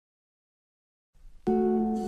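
Silence, then about one and a half seconds in, background music starts with a plucked string chord that rings on.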